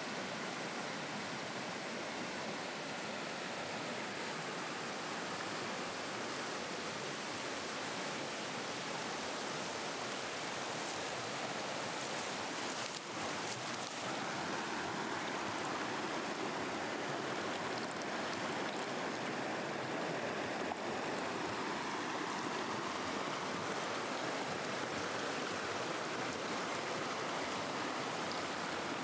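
Mountain river rushing over rocks in white-water rapids: a steady, even roar of running water, with a brief dip about halfway through.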